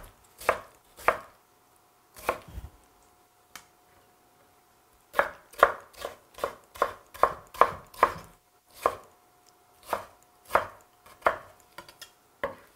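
Chef's knife chopping chonggak kimchi (pickled ponytail radish) into cubes on a wooden cutting board. A few separate chops come first, then a pause of a couple of seconds. After that a quick run of chops at about three a second slows to a few spaced strokes near the end.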